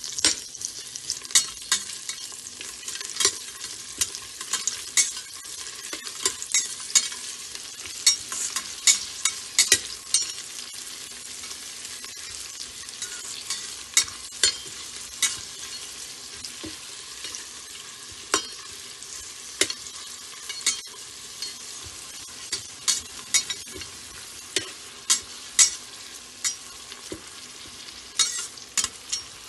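Sliced onions sizzling in hot oil and ghee in an Instant Pot's stainless steel inner pot on sauté. A metal spoon stirs them, clinking and scraping sharply against the pot many times at an irregular pace.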